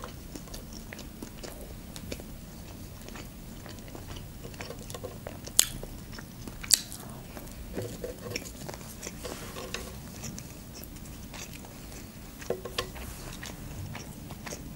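Close-miked chewing of chicken nuggets dipped in ketchup: soft wet mouth sounds with scattered small clicks, and two sharper clicks a little past the middle.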